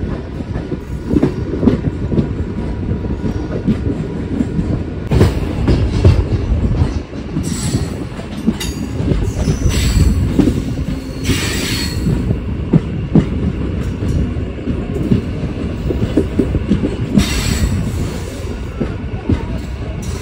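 Konkan Railway MEMU electric train running on the track, a heavy low rumble with rail clatter and knocks. Several brief high-pitched squeals cut through it, the strongest a little past halfway.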